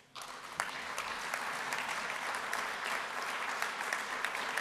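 Audience applauding, many hands clapping at a steady level. It sets in suddenly right at the start.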